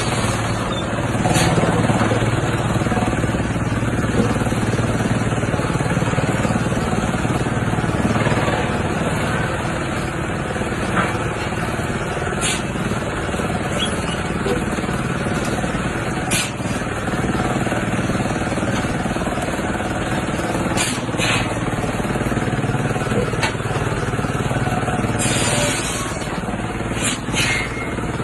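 Industrial wood chipper machine running with a steady, loud mechanical drone and a low hum, broken now and then by sharp knocks.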